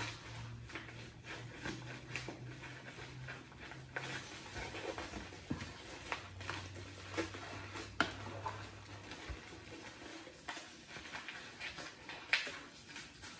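Scissors cutting along the edge of a large white mailing envelope to open a parcel: irregular snips and sharp clicks of the blades, with crinkling and rustling of the envelope.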